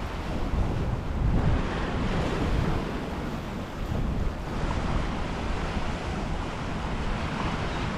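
Wind buffeting the microphone over the wash of surf, a rough, uneven rushing noise that rises and falls.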